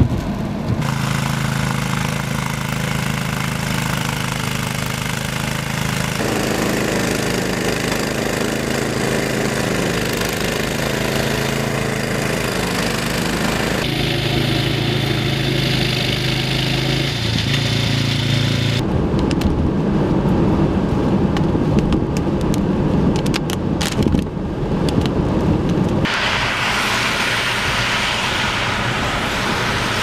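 Walk-behind gas snowblower engine running steadily while clearing a snow-packed driveway, heard across several cuts. For the last part it gives way to a rough rumbling rush of wind and traffic noise.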